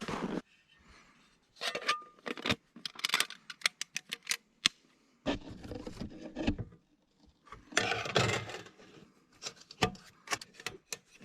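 Irregular clicks, knocks and short rustling scrapes of objects being handled.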